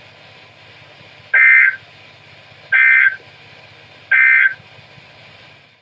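Emergency Alert System end-of-message data tones: three short, harsh bursts of digital squawk about a second and a half apart, marking the end of the warning broadcast. A faint low hum runs underneath.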